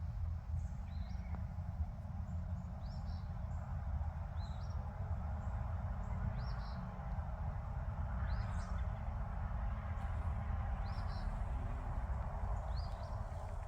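A small bird chirping repeatedly, short high chirps every second or so, over a steady low outdoor rumble.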